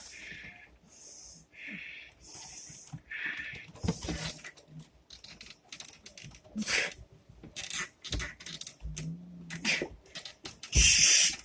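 Arm wrestlers straining: sharp, hissing breaths and wheezes forced out under effort, with short knocks and rustles, then a loud noisy burst near the end.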